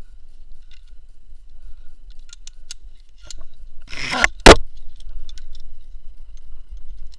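Climbing hardware, carabiners and a rope device, clinking in scattered sharp metallic clicks as a climber handles the gear on the rope. About four seconds in, a short scraping rush ends in a single loud knock, the loudest sound here.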